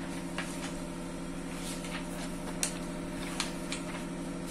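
A steady machine hum with a few light clicks and rustles as printed paper sheets are handled.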